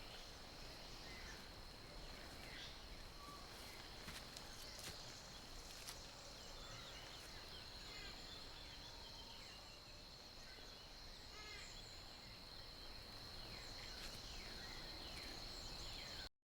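Faint nature ambience: a steady, high-pitched insect drone with scattered short, falling bird chirps. It cuts off abruptly near the end.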